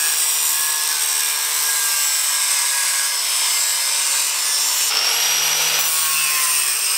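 Small handheld electric grinder with a cut-off disc cutting through the sheet metal at the top of a car's front strut tower: a steady high motor whine over a rasping cutting noise. About five seconds in, the whine dips and climbs back up to speed.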